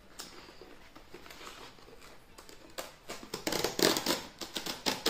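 Cardboard mailer envelope being torn open by hand: quiet rustling and handling at first, then a run of loud ripping and crinkling over the last two seconds.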